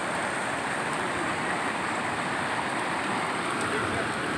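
Shallow river water rushing over rocks in small rapids: a steady, even rush of flowing water.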